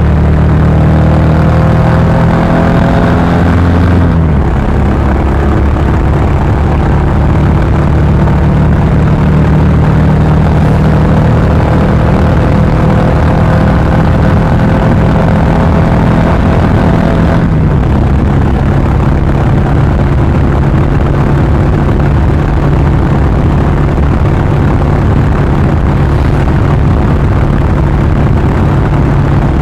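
Royal Enfield Classic 350 BS6 single-cylinder engine and exhaust running under way at road speed, with wind rush on the microphone. The engine note steps down in pitch about four seconds in and again after about seventeen seconds, as at upshifts.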